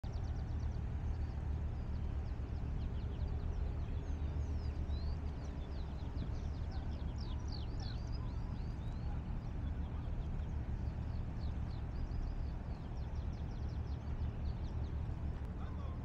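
Steady low rumble and wash of harbour water, with small birds twittering in quick high chirps from about three seconds in until near the end.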